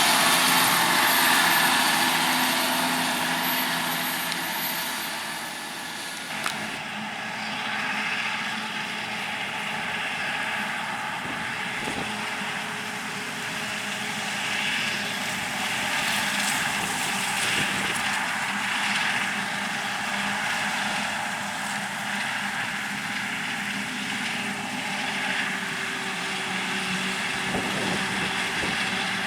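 Diesel engines of harvest machinery (forage harvester and tractors) running steadily. Abruptly about six seconds in, the sound changes and a thin high whine drops out.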